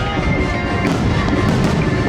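Fireworks bangs and crackling, a few sharp reports about a second in and near the end, mixed with music playing.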